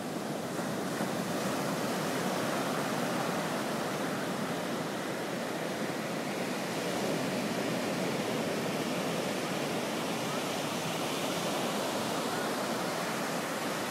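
Ocean surf breaking and washing up onto a sandy beach, a steady rush of waves with no pauses.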